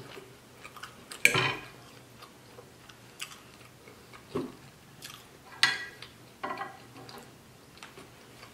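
Metal fork clicking and scraping on a plate a few times, sharpest about a second in and again at about five and a half seconds, with chewing sounds in between.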